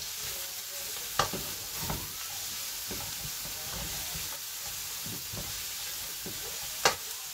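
Vegetables and chicken sizzling in a hot wok over a full flame while a wooden spatula stirs and tosses them, with sharp knocks of the spatula against the wok about a second in and again near the end.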